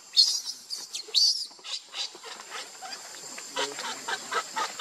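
Baby monkey screaming in a series of short, high-pitched squeals while its mother holds it down on the ground: distress cries.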